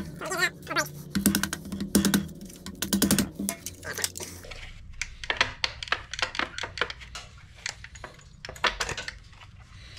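Hard plastic parts of a 3D-printed electric ducted fan clicking and clattering as the housing and gear parts are pried apart by hand: quick sharp clicks, thick for the first few seconds, then sparser.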